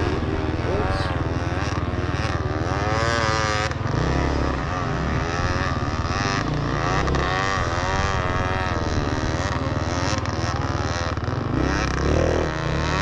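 Dirt bike engines revving up and down again and again.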